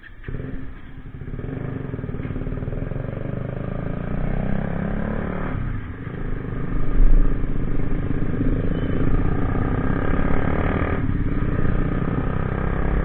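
Bajaj Pulsar NS motorcycle engine running under way, its note steady with two brief dips partway through, likely gear changes.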